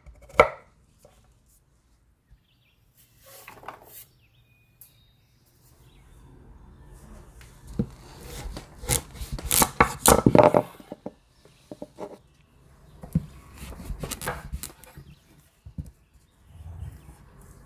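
Kitchen food-preparation sounds: one chopping stroke at the start, then a pause, then rubbing and scraping with scattered knocks, busiest about halfway through.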